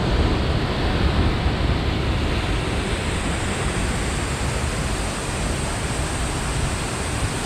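Waterfall: falling water making a steady, even rush with no let-up.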